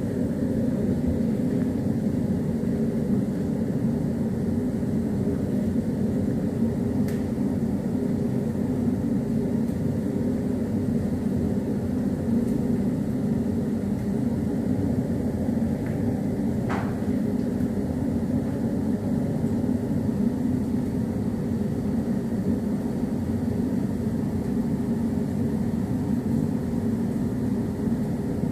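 A steady low machine hum with a few constant tones in it, unchanging throughout. A faint click comes about seven seconds in and a short sharp tick about seventeen seconds in.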